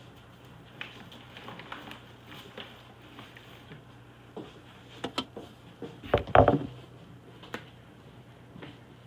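Kitchen handling sounds: scattered light clicks and knocks, with a louder clatter and thud about six seconds in, over a steady low hum.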